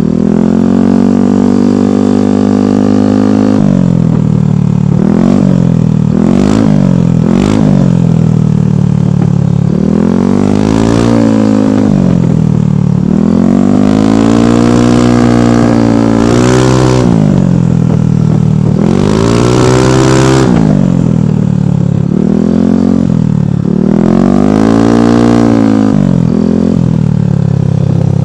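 Yamaha NMAX V2 scooter's single-cylinder engine through a Rev 5 aftermarket exhaust, revved over and over from idle: a few quick blips, then several longer revs whose pitch climbs and falls back to idle. The exhaust note is bassy, with a slight backtone.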